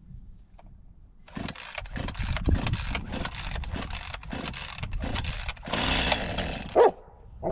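Two-stroke Echo chainsaw being pull-started: repeated rasping pulls of the recoil starter with the engine cranking over but not yet running, and a short louder burst near the end.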